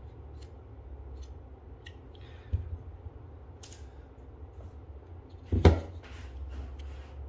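Handling noises from the plastic housing of a Walch Centralin soap dispenser: scattered light clicks and taps, a sharp knock about two and a half seconds in, and a louder thump a little past halfway as the dispenser is stood upright on the table, over a low steady hum.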